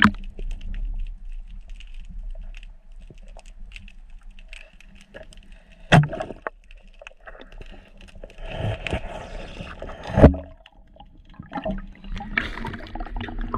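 Underwater noise with water gurgling and three sharp knocks from a rubber-band speargun and its spear: one at the start, one about six seconds in and the loudest about ten seconds in.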